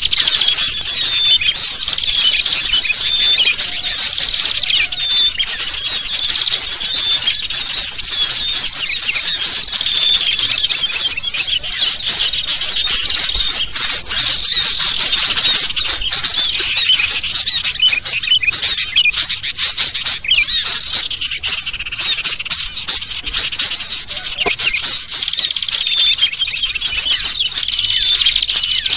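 Dense, unbroken chattering of agitated sooty-headed bulbuls mixed with the high chirps of many small birds, a bird-trapping lure recording meant to draw wild birds in.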